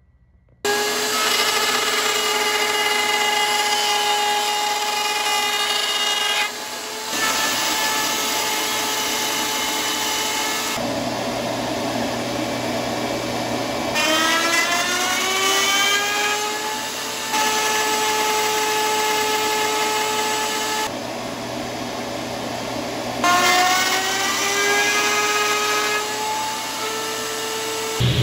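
Router spinning a quarter-inch spiral bit in a router table, a steady high whine as it cuts Baltic birch plywood. The router starts about a second in, and twice more its whine rises in pitch as the motor spins up.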